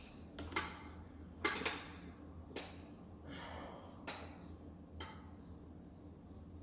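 A plastic quart bottle of motor oil being handled: several short sharp clicks and knocks, roughly a second apart, with a brief scratchy rustle in between. A faint low hum runs underneath.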